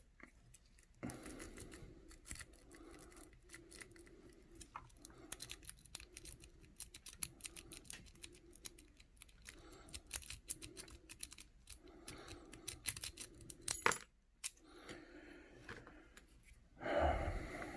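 Lock picking on a brass Master Lock No. 160 padlock: many small metallic clicks and scrapes of a pick worked quickly across the pin tumblers, raking rather than setting pins one at a time. A louder knock comes about fourteen seconds in, and a louder handling rustle near the end.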